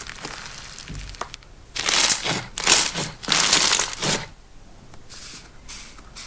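Hands squeezing and pressing slime that has a dry layer on top, in three loud noisy bursts between about two and four seconds in.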